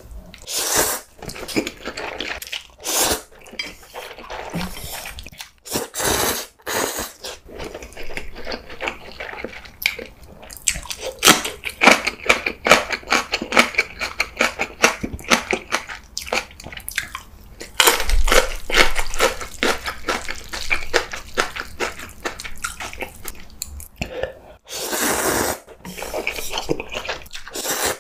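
Close-miked eating of instant ramen: loud wet slurps of noodles near the start and again a few seconds before the end, with fast, crunchy chewing in between.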